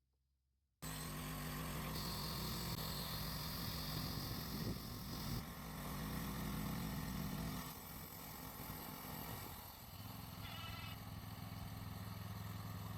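Portable bandsaw sawmill's small engine running steadily, starting suddenly about a second in, with its note and level shifting slightly about eight seconds in and again near ten seconds.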